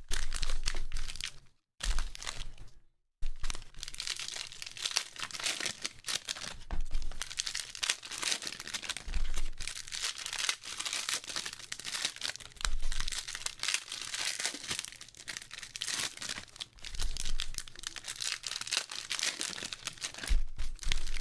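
Foil trading-card pack wrappers crinkling and rustling as a stack of packs is handled and shuffled, a dense run of small crackles that cuts out twice briefly near the start.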